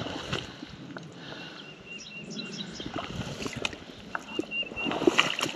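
Footsteps swishing through tall, overgrown grass, in uneven rustling strokes that are loudest about five seconds in. Behind them a bird calls a short high note over and over, with a few quick chirps about two seconds in.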